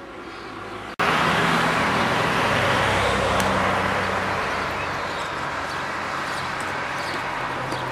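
Road traffic noise: engine hum and tyre rush from motor vehicles. It starts suddenly about a second in and then slowly fades.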